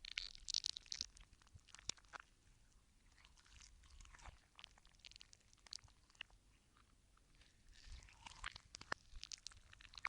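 Slime being squeezed and worked, with irregular wet squelching pops and crackling clicks, thickest about half a second in and again near the end.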